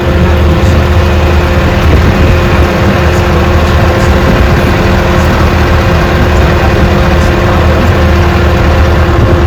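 Tour train running steadily, heard from aboard: a loud, even engine drone with a low rumble and a few steady tones over it.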